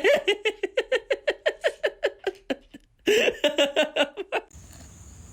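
A person laughing hard: a long string of rapid, even "ha" pulses, a short pause, then a second burst of laughter that cuts off about four and a half seconds in.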